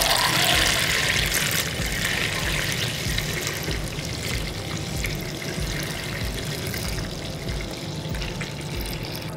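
Wort pouring from a stainless steel brew kettle through a plastic funnel into a glass carboy: a steady splashing stream that slowly gets quieter.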